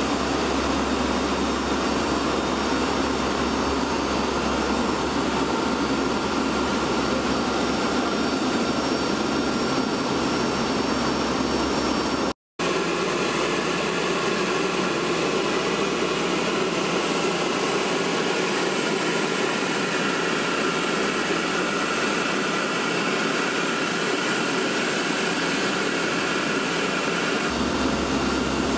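Steady engine and rushing-air noise inside a military cargo aircraft's hold in flight, cut off briefly by a moment of silence about halfway through.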